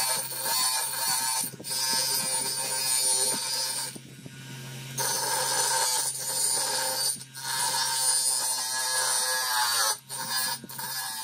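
DeWalt bench grinder running with a steady motor hum while rusty steel is held against its grinding wheel, giving a harsh grinding noise. The grinding eases for about a second around four seconds in.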